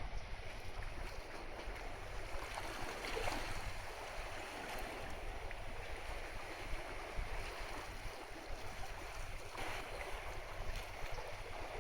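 Steady rush of sea water and wind around the car ferry Kanaya-maru under way, with a low rumble underneath.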